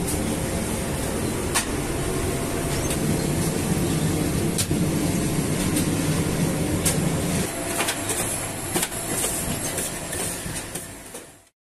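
Semi-automatic flatbread production machinery running: dough sheeting rollers and conveyor belt give a steady mechanical rumble and low hum with scattered clicks. It fades and cuts off near the end.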